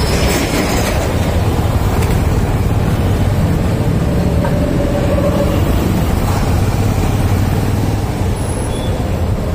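Steady low rumble of a motorcycle ride through town traffic: the bike's engine and the surrounding two-wheelers and autorickshaws running.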